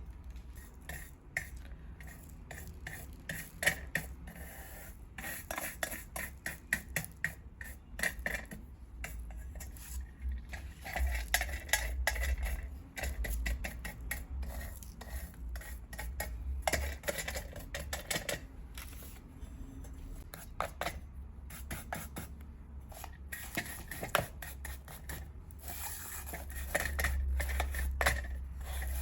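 Irregular metallic clinks, knocks and scrapes of an old brass charcoal samovar and its parts being handled, over a low steady rumble.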